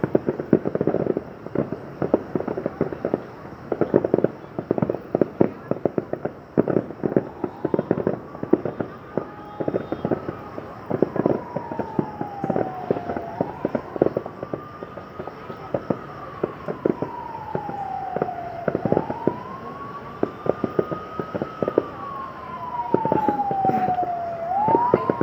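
Fireworks bursting in rapid, irregular bangs and crackles. From about seven seconds in, a siren wails over them in a slow rise and fall, repeating every five or six seconds.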